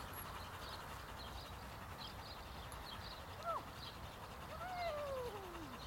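A woman's high sing-song calls to a running dog: a brief rising-and-falling call, then a longer call sliding down in pitch near the end, like a drawn-out word of praise.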